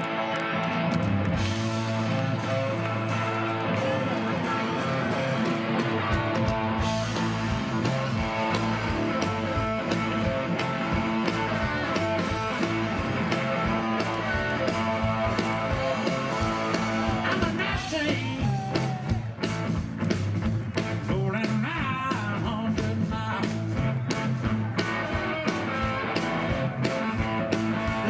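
Live blues-rock band: a semi-hollow Fender Telecaster Thinline electric guitar playing over bass guitar, with the drums' low beat filling in about six seconds in.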